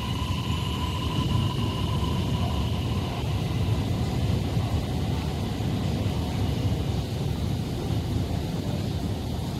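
Chengdu Metro Line 17 train pulling out of an underground station behind platform screen doors: a steady deep rumble of the moving train, with a high steady tone that fades out about three seconds in.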